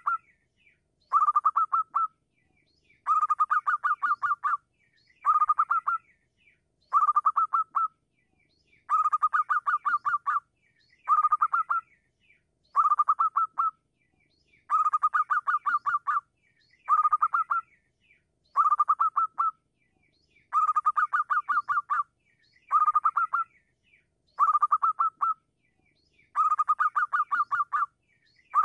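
Zebra dove (perkutut) singing its staccato cooing song over and over: quick runs of rapid notes, about one phrase every two seconds, some phrases longer than others, with short silences between.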